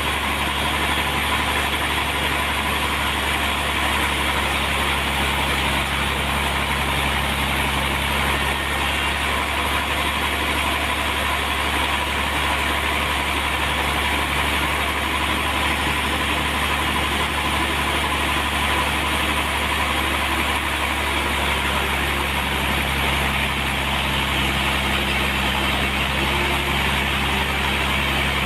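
Sawmill machinery running steadily: a motor-driven saw giving a continuous drone with a faint steady whine.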